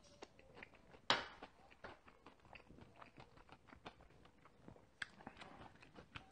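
Close-up chewing and mouth sounds of a person eating bibimbap, with small irregular clicks of a spoon. There is one much louder sharp knock with a short ring about a second in.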